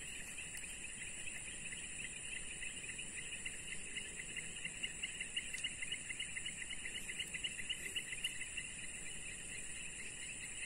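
Insects chirping in pond-side vegetation: a steady high-pitched drone with a fast pulsing trill of chirps over it, the trill growing louder partway through.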